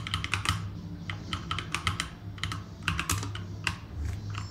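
Computer keyboard keystrokes: quick, irregular clusters of sharp key clicks with short pauses between them.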